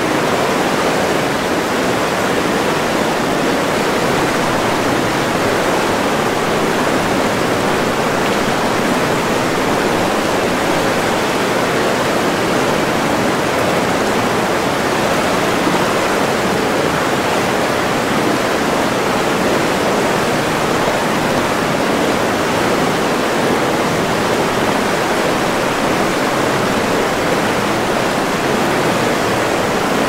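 A small river in high water rushing over rapids: a loud, steady roar of white water breaking over stones and around a fallen branch.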